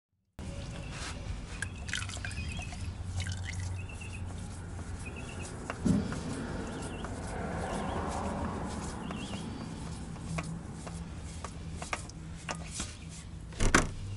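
Engine oil trickling and dripping as a Hyundai Accent's oil filter is unscrewed by hand, with small handling clicks and a couple of sharper knocks, one about six seconds in and one near the end.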